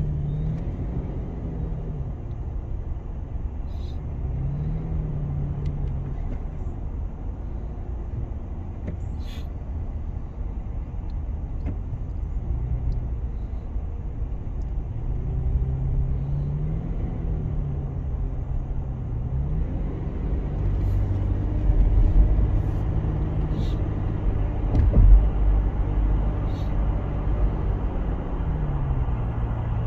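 Car driving on the road: steady low engine and tyre rumble, with the engine note rising and falling several times as it speeds up and eases off. Two brief louder thumps come near the end.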